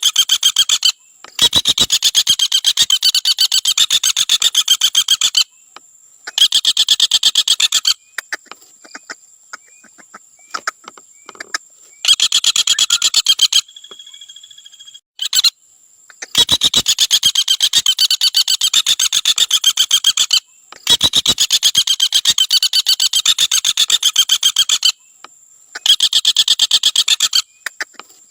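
Common flameback woodpecker (Dinopium javanense) giving its rapid trilling rattle call in about six bursts of fast, evenly spaced notes, each burst lasting a couple of seconds, with short pauses between.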